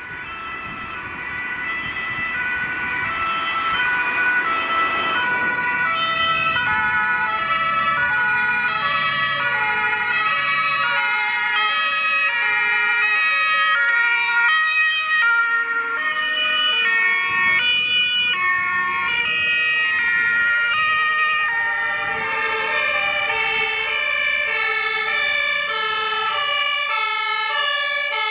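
Several fire-engine two-tone sirens sounding at once, each alternating between two notes and out of step with the others, with vehicle engine rumble underneath. The sirens grow louder over the first few seconds as the convoy approaches.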